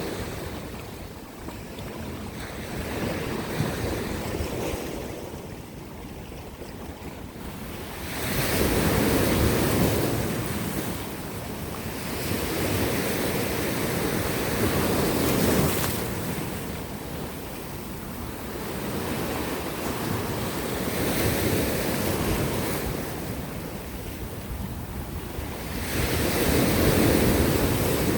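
Sea surf washing against coastal rocks, swelling into a louder surge every several seconds and ebbing back in between, four times over.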